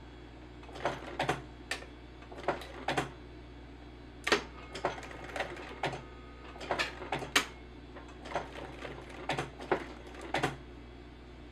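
Sewing machine stitching slowly in short, uneven runs: a string of separate sharp needle clicks, some two or three close together, with pauses between.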